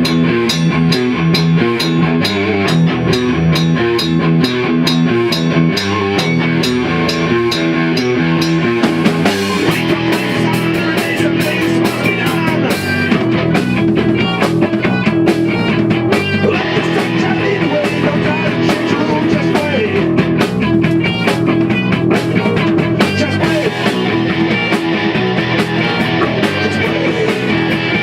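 Rock band playing live: electric guitar, bass and drum kit with a steady beat, the pattern changing about nine seconds in.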